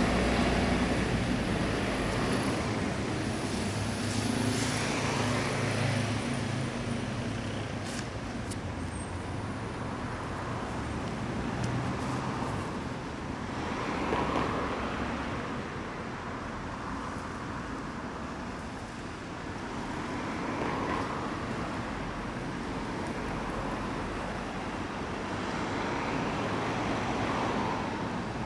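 Road traffic on a city street: vehicles passing one after another, the noise swelling and fading as each goes by.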